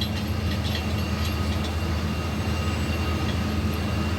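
A steady low machine hum, with a few faint ticks in the first second or so.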